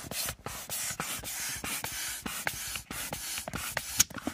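Handheld air pump being worked by hand to top up an inflatable boat, each stroke a short hiss of air through the hose, repeated rapidly.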